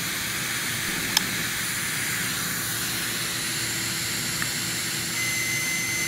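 Steady hiss of compressed shop air held on a pneumatic valve actuator, with a single sharp click about a second in. Near the end a multimeter's continuity beeper starts a steady high tone as the probes find continuity on the limit switch terminals.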